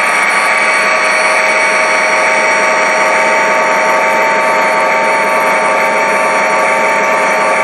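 Model railroad coal train running past, diesel locomotives and a string of hopper cars: a steady, loud mechanical running noise with a steady whine.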